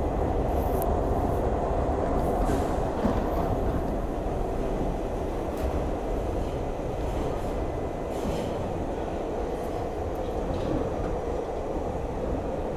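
New York City subway G train running through a tunnel, heard from inside the car: a steady rumble of wheels on rails, with brief high-pitched squeaks every couple of seconds. The rumble eases slightly after about four seconds.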